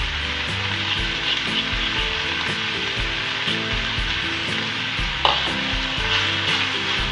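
Keema (minced meat) frying in a pan with a steady sizzle while chopped fresh coriander is stirred through it with a spatula. There is a single sharp knock about five seconds in.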